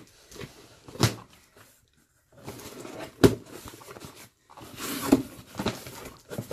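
A cardboard parcel box being opened by hand: rustling and scraping of the cardboard and packing, with a few sharp knocks, the loudest about three seconds in.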